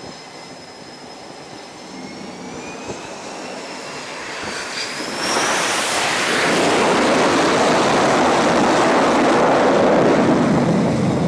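Carrier jet's engine whine on approach, one tone gliding upward, then about five seconds in a loud, steady jet engine noise as the jet touches down and catches the arresting wire at full power. The noise cuts off suddenly at the end.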